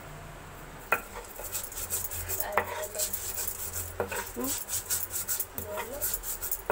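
Coriander being ground by hand on a flat stone grinding slab: a crusher scrapes and knocks against the stone in quick repeated strokes, starting about a second in.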